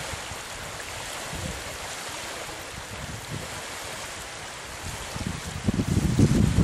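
Steady outdoor rushing noise. Near the end a louder, gusty low rumble of wind hitting the microphone comes in.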